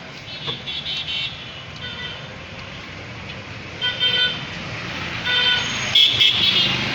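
Street traffic running steadily, with several short horn toots sounding one after another.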